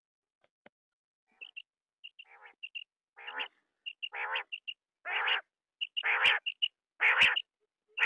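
Quail (batair) calling: short high pips mixed with a harsher burst about once a second, growing louder from about three seconds in.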